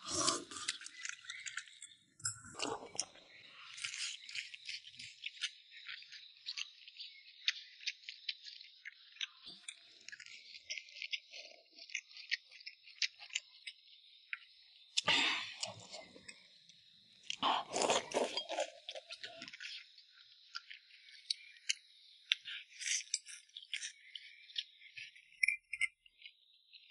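A person eating: chewing, with many small clicks and clinks of tableware, over a steady high hiss. A few louder bursts come about two seconds in and again around fifteen and eighteen seconds.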